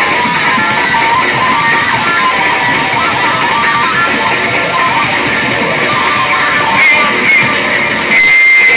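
Loud live noise rock from a two-piece band: heavily distorted bass guitar over a drum kit, dense and unbroken. Near the end the low end drops away and a steady high whine takes over.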